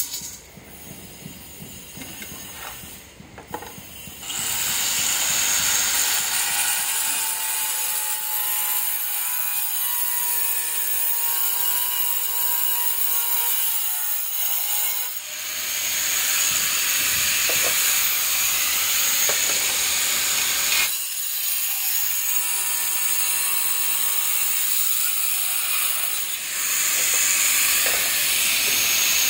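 Handheld electric angle grinder cutting red ceramic floor tiles: a loud, steady high-pitched whine with gritty cutting noise. It starts about four seconds in after a few light clicks, eases off briefly twice as the cut changes, and is loudest again near the end.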